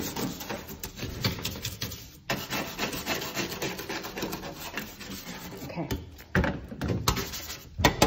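Small stiff-bristled scrub brush scrubbing hard-water deposits off a stainless steel drinking fountain, in rapid back-and-forth strokes that grow louder near the end.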